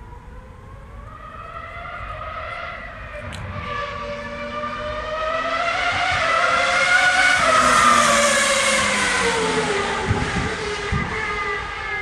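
Two-seater Minardi Formula 1 car's V10 engine at full cry on the track, its pitch rising and dropping repeatedly as it goes through the revs. It grows louder to a peak about eight seconds in as the car comes past, then fades as it moves away.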